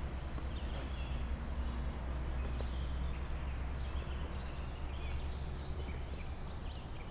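Woodland ambience: small birds chirping in short, high calls over a steady low rumble on the microphone.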